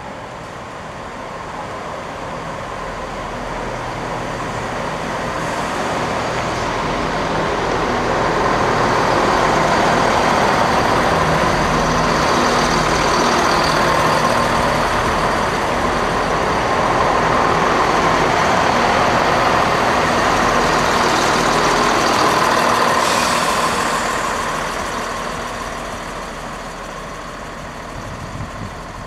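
Class 168 Clubman diesel multiple unit passing: its underfloor diesel engines and wheels on the rails grow louder over several seconds, stay loud for about fifteen seconds while it runs by, then fade.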